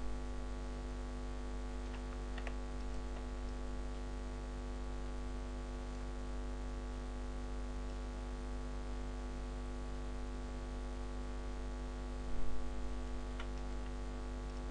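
Steady electrical mains hum with a buzzy stack of overtones, picked up by the recording microphone, with a few faint clicks and a brief low thump about twelve seconds in.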